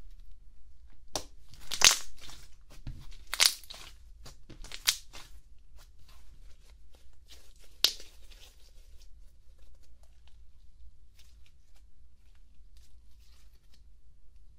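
Thick slime being stretched, pressed and folded by hand, giving sticky tearing and crackling sounds. Four louder snaps come in the first eight seconds, followed by softer crackles.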